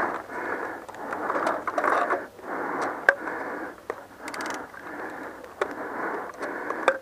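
Muffled rustling and handling noise of a paintball player reloading his marker, with a few sharp clicks.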